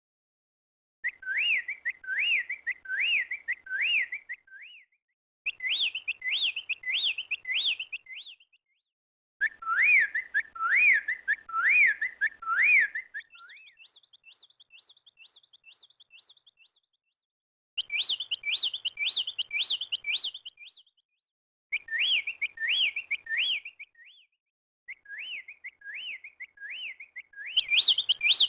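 A songbird singing in repeated phrases of clear, rising-and-falling whistled notes, about two notes a second, with short silent gaps between phrases. A fainter, quicker trill follows the third phrase.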